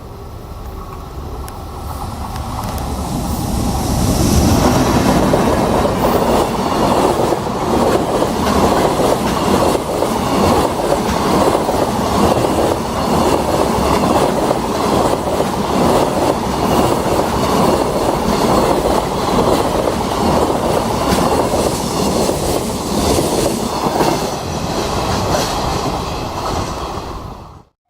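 Freight train passing, its wheels clattering over the rail joints in a fast, dense rhythm. The sound builds over the first few seconds, then holds steady, and cuts off suddenly near the end.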